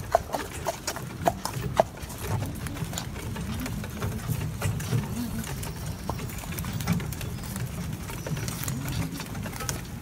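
Hooves of a Gelderland horse clip-clopping as it is driven in harness. The sharp hoof strikes are clearest in the first two seconds, about two to three a second; after that they go on more faintly over a low rumble.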